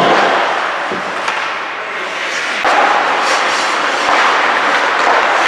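Ice hockey rink noise: a steady scraping hiss of skate blades on the ice, with a few short sharp knocks about a second in. The noise grows louder about halfway through.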